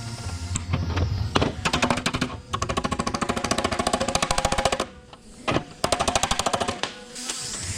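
A power tool rattling in very rapid strokes, about twenty a second, in two bursts with a short break between them about five seconds in, over background music.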